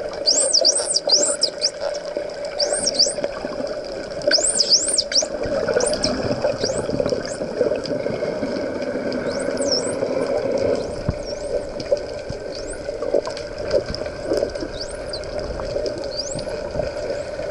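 Dolphins whistling underwater: many short, high whistles that sweep up and down in quick loops, bunched near the start and again about three and five seconds in, then more scattered. Underneath is a steady underwater hiss and hum.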